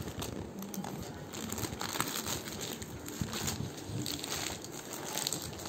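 Packaging being handled and crinkled while a saree is packed and taped, a dense run of small crackles that grows fuller about a second in.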